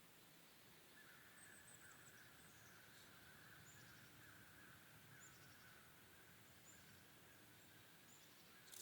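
Near silence with faint outdoor ambience: small high bird chirps repeating about every second or so over a faint steady drone.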